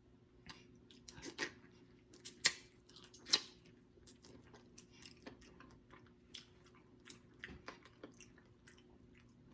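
A person chewing and biting into boiled neck bones close to the microphone: irregular wet mouth clicks and smacks, loudest about two to three and a half seconds in, then softer chewing.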